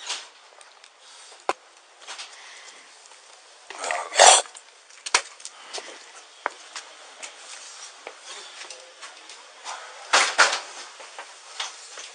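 Footsteps on porch steps and rustling gear, picked up by an officer's body-worn camera microphone, with scattered knocks and thumps. The loudest thump comes about four seconds in, and another cluster of knocks about ten seconds in.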